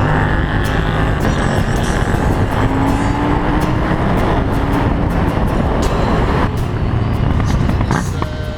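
KTM Duke 790's parallel-twin engine through an Arrow dual exhaust with the dB killers removed, riding on the road, heard from a following vehicle under heavy wind and road noise; the engine note rises slightly about three seconds in.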